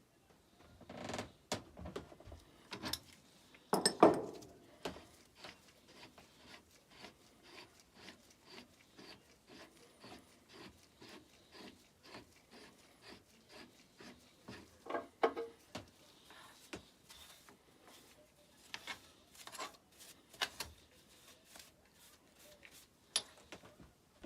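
A hand tool working a piece of metal bar stock in a steady series of strokes, about two or three a second, with a few louder knocks along the way, the loudest about four seconds in.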